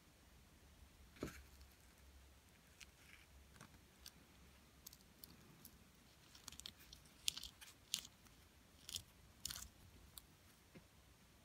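Faint clicks and light scrapes of small metal grease-gun coupler parts being handled and screwed together by hand, the sharper clicks clustered in the second half.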